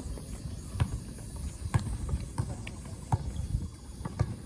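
A basketball being dribbled on a court: a run of bounces, about one a second.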